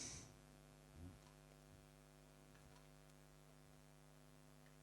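Near silence with a faint, steady electrical mains hum, and one soft bump about a second in.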